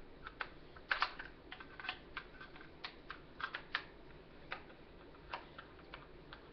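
Irregular light clicks and taps of small hard objects being moved and handled, as in rummaging for a screwdriver, some in quick clusters and some on their own.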